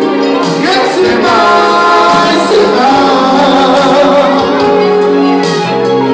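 Live Romani band music, amplified through a PA: a singer through a microphone over electric keyboard and guitar.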